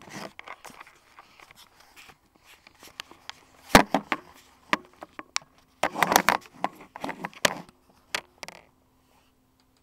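Handling noise from the camera being moved about: rustling, scraping and clicks with sharper knocks about 4 and 6 seconds in, then settling to quiet near the end over a faint steady hum.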